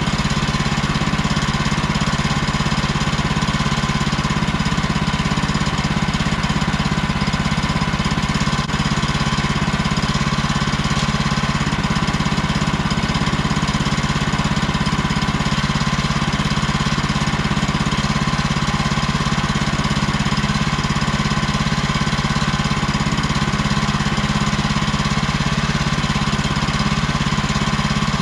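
Woodland Mills HM130MAX portable sawmill's gas engine running steadily at idle, warming up after a cold start on choke.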